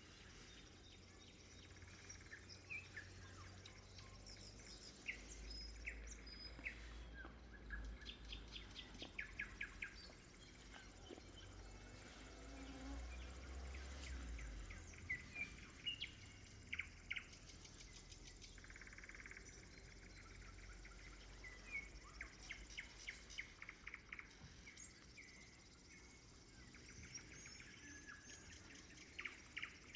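Nightingale singing faintly, with fast runs of repeated notes and trills among other birds' chirps, and a faint low rumble through the middle.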